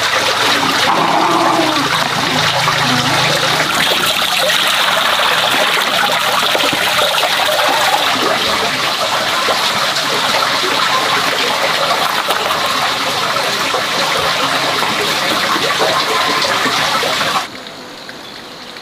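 River water rushing steadily, a loud even hiss, which drops away suddenly to a much quieter background near the end.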